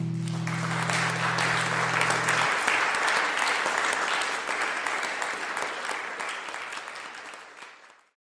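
Audience clapping at the end of a musical piece, while the final guitar chord rings out under it for the first couple of seconds. The clapping thins and fades away near the end.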